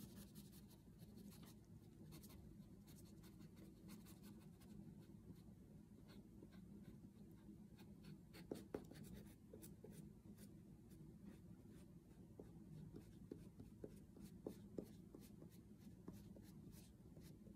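Oil pastel stick scratching on paper in many short, quick colouring strokes. Faint, with a couple of louder scrapes about eight and a half seconds in.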